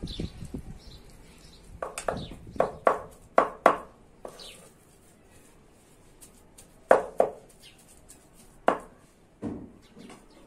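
Large knife chopping raw chicken breast into mince on a wooden cutting board: a run of sharp knocks, bunched in quick succession at first, then a few spaced strokes.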